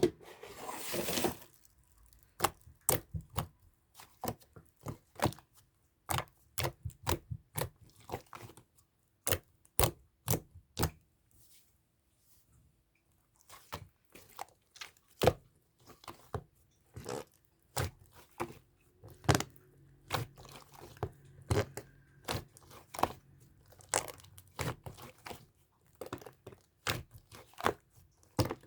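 Slime being squeezed and kneaded by hand, giving a run of sharp, irregular clicking and crackling pops. The pops start with a short noisy burst and pause for a couple of seconds about halfway through.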